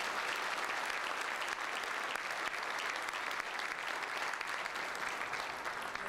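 Audience applauding steadily, a dense, even clapping that holds at one level throughout.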